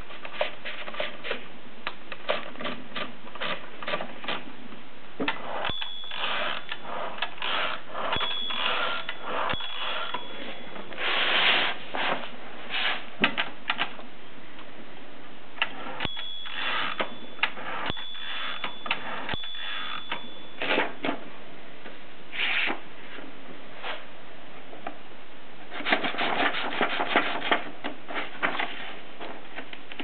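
Erika 5 portable typewriter worked by hand: sharp clicks and ratcheting from its carriage, levers and platen. A high ring, the carriage bell, sounds six times in two groups of three. Near the end comes a dense run of rapid ratchet clicks.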